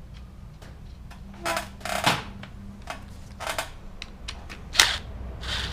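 Metal tools and engine parts being handled: about five sharp clicks and knocks at irregular intervals over a low steady hum.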